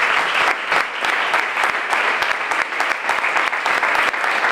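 Audience applauding: many hands clapping in a steady, unbroken patter.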